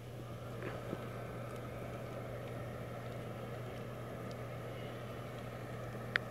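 Small blower fan of a Gemmy airblown inflatable spider running steadily, filling the limp nylon body with air. A single sharp click near the end.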